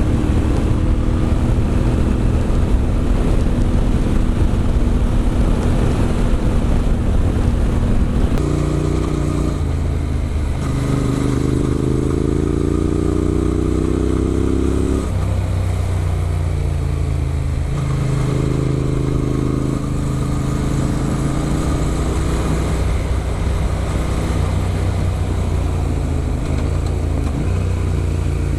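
Adventure motorcycle engine running under way, holding steady, then accelerating, with the pitch climbing and dropping back at gear changes from about eight seconds in.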